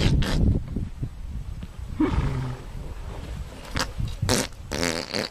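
An animal calling in several short bouts: low and rough in the first half second, then pitched calls about two seconds in and again near the end.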